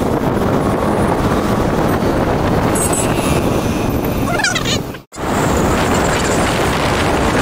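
Wind rushing over the microphone with engine and road noise from a moving two-wheeler in traffic. A brief warbling tone sounds about four and a half seconds in, and the sound cuts out for an instant just after.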